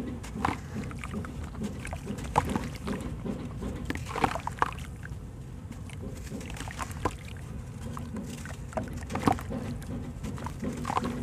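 Soaked sand-cement block crumbled by hand over a basin of water: irregular crunches and crackles, with crumbs, grit and water splashing into the basin.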